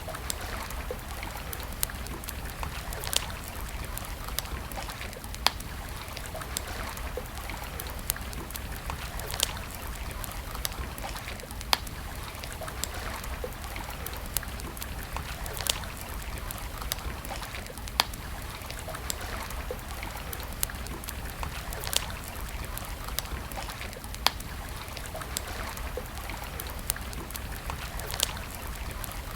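Wood fire crackling: frequent sharp pops and snaps, a loud one every two seconds or so, over a steady hiss and low rumble.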